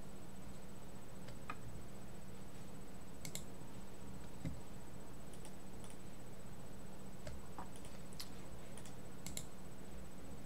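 Room tone with a steady low hum, broken by a few faint, irregular small clicks and ticks.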